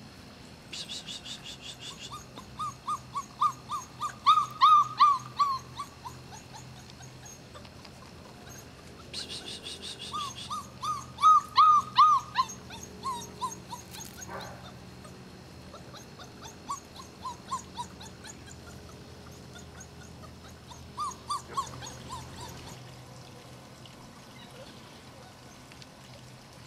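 Šarplaninac puppies about a month old yipping in quick runs of short high calls, about four a second, in several bouts that swell and then fade. A fast high-pitched trill sounds briefly twice between them.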